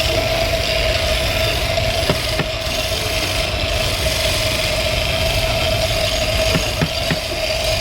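Power tool's electric motor running steadily with a constant hum and hiss, a few light clicks near the middle and end.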